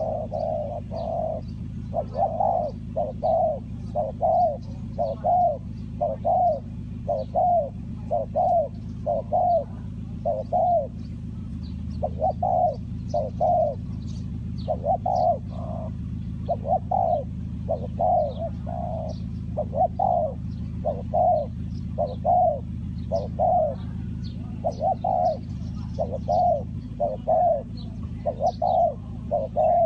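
Spotted dove cooing over and over, a long run of low coos mostly in twos and threes. Faint chirps of small birds sound above it, and a steady low hum runs underneath.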